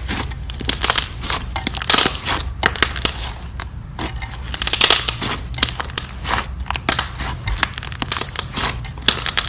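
Slime being squeezed and worked by hand, giving dense, irregular sticky crackles and pops, with a steady low hum underneath.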